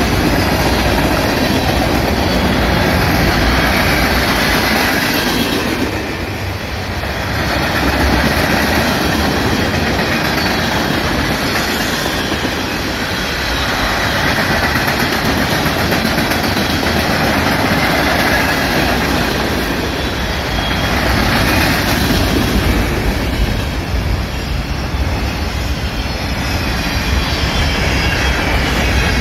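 Freight train of tank cars and covered hopper cars rolling past on the rails: a continuous rumble with the clickety-clack of wheels over rail joints, rising and dipping in loudness every several seconds.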